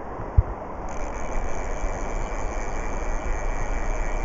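Steady rushing noise of wind buffeting the microphone over a flowing river, with one short low thump about half a second in.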